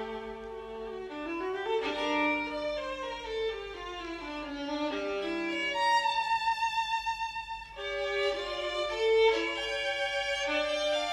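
Violin music: a stepwise melody over accompanying parts, with one long note held with vibrato about six seconds in.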